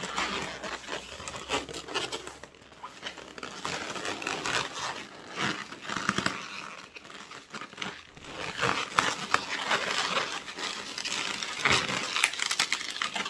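Inflated latex modelling balloons rubbing and squeaking against each other as they are twisted by hand, an irregular crackle with no pause.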